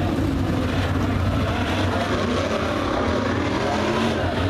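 A field of dirt late model race cars with V8 engines running at low speed in a pack, a steady engine drone, as the cars circle slowly under caution.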